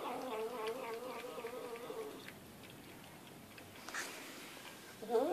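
Domestic cat making a long, drawn-out moaning meow held at one wavering pitch, fading out about two seconds in; a second call rising in pitch begins right at the end.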